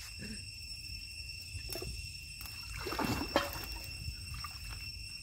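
Water splashing and dripping as a wet person climbs out of a river onto a muddy bank, with one louder splash about three seconds in.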